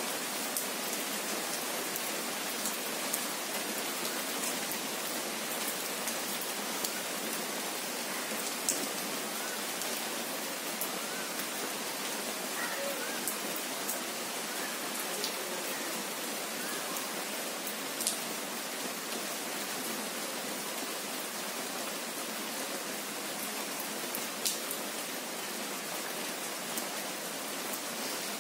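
Steady rain falling: an even hiss with scattered sharp taps of single drops, a few louder ones here and there.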